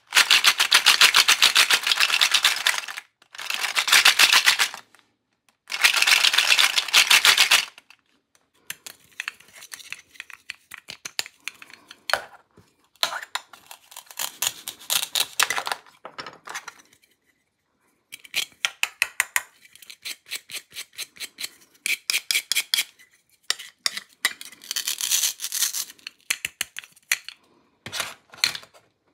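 Toy plastic fruit and vegetables being handled and cut with a plastic toy knife. The hook-and-loop fastened halves come apart with crackling rips, between light plastic clicks and taps. Three long loud crackling stretches come in the first eight seconds, then shorter, quieter runs of crackles and clicks.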